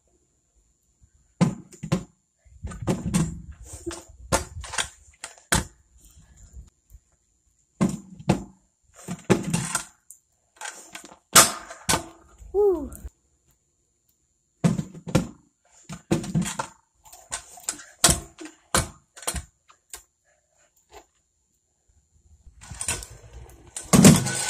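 Freestyle scooter clattering on concrete: wheels landing and rolling, with the deck and bars knocking as tail-whip tricks are tried. The knocks come in bursts a few seconds apart, with quiet gaps between them.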